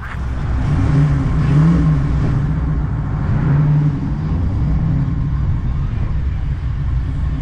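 Car engine running under way, a deep low exhaust note whose pitch swells up a little twice, as in light throttle changes.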